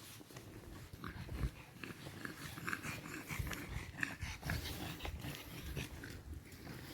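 Dog sounds at close range, with short faint high squeaks scattered through the middle.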